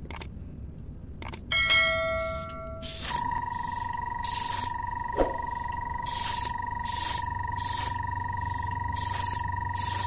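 A brief ringing ding, then a pen airbrush's small compressor starts with a steady high whine. Short hisses of paint spray come about once a second as red paint is sprayed onto a lure.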